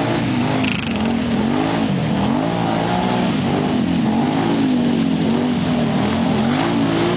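ATV engines revving up and down over and over, the pitch rising and falling every second or so, as the quads drive through deep muddy water.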